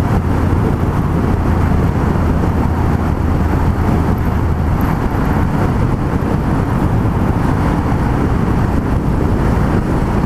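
Yamaha MT-03 660 motorcycle with a single-cylinder engine running at a steady cruising speed, mixed with a heavy rush of road noise. A steady low hum under the rush fades about halfway through.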